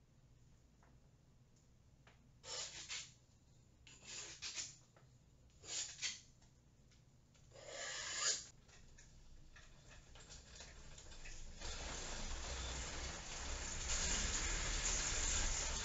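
A paint-covered spreader dragged through wet acrylic paint on a flat panel, making four short scraping strokes. From about ten seconds in, a steady rushing noise with a low rumble builds up and holds as the painted panel is spun.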